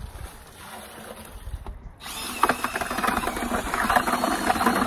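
Dry mortar mix pouring from a paper bag into a plastic bucket. From about two seconds in, a drill with a paddle mixer runs in the bucket, churning the mortar and water.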